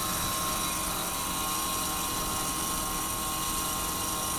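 Emotator 1200 antenna rotator's 24-volt DC motor and gear train running steadily at high speed, the direction switch locked on, as the rotator turns.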